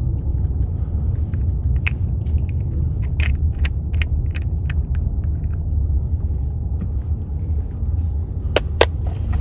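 Steady low road rumble inside a moving car, with scattered light clicks and taps of small plastic makeup jars and compacts being handled. Two sharper clicks come near the end.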